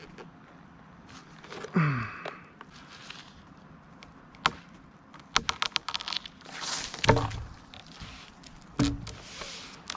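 A short creak falling in pitch, then a run of sharp clicks and knocks, and two heavy thuds about two seconds apart.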